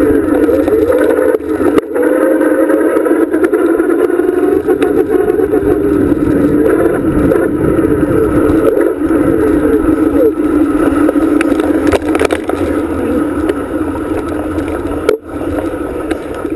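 Ride noise picked up by a camera mounted on a moving bicycle: a steady rush with a wavering hum over it. The noise drops away abruptly near the end.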